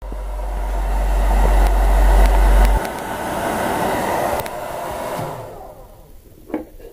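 Hair dryer blowing to dry wet dye on leather: a steady rush of air with a strong low hum that cuts off about three seconds in, the blowing then fading away near the end.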